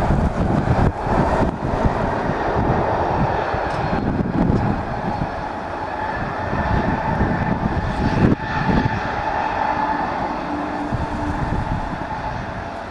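Jet engine noise from a Boeing 767 freighter rolling out along the runway just after landing: a continuous rumbling roar that eases off near the end as the aircraft slows and moves away.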